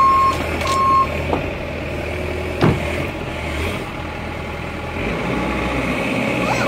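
Bobcat E50 mini excavator's diesel engine running steadily, with two short beeps of its alarm right at the start and a single sharp knock a little under three seconds in.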